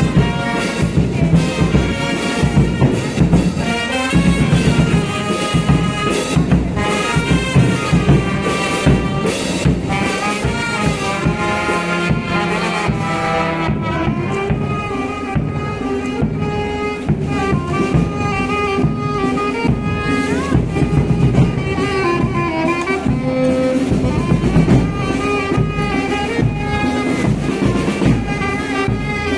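Marching band playing a brass melody with saxophone, over steady drum beats.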